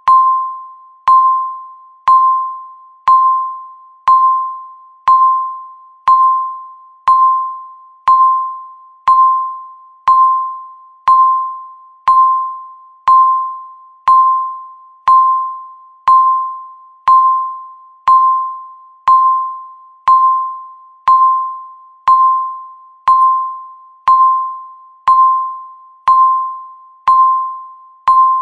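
Electronic countdown-timer beep sounding once every second, each a single mid-pitched tone that starts sharply and fades away before the next, marking one second ticking off the countdown.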